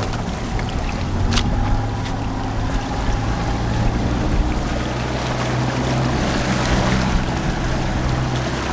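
Outboard motor idling with a steady low hum, with wind on the microphone; a single sharp knock about a second and a half in.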